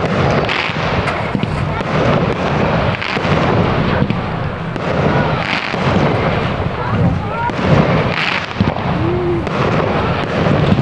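Fireworks display going off, one boom and crackle after another with no break, with crowd voices in between.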